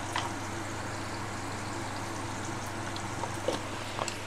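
Green chillies, curry leaves and tempering seeds frying in a little hot oil in a small metal kadai, a steady sizzle with a few light clicks near the start and towards the end.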